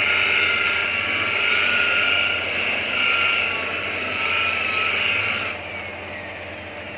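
Electric rotary car polisher running with a high whine, its level rising and falling as the pad works the door panel. About five and a half seconds in it is switched off, and the whine falls in pitch as it winds down.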